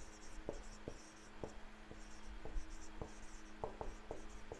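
Whiteboard marker writing on a whiteboard: a run of short high squeaky strokes with light taps as each letter is drawn.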